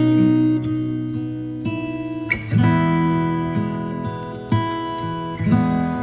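Acoustic guitar music: plucked chords struck every second or two and left to ring and fade.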